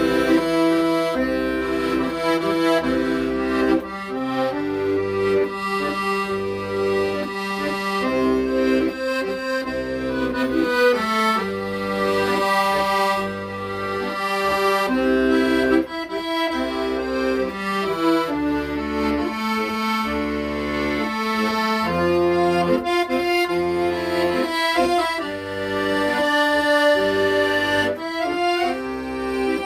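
Accordion playing a nostalgic Korean ballad: sustained melody notes over a steady, evenly repeating low bass-and-chord pattern.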